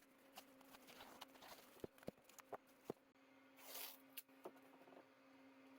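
Near silence: a handful of faint clicks and taps, as of small objects being handled, and a brief soft hiss about four seconds in, over a faint steady hum.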